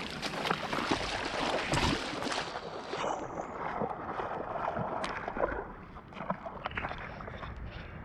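Water splashing and sloshing in a shallow, rocky creek, with scattered knocks and rustles; loudest over the first three seconds, then lighter.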